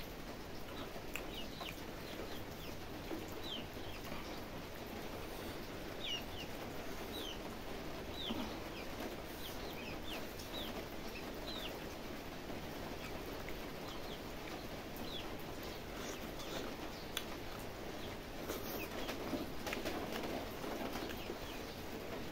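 Small birds chirping again and again, short high chirps that fall in pitch, with soft squelching of rice and curry being mixed by hand and chewed underneath.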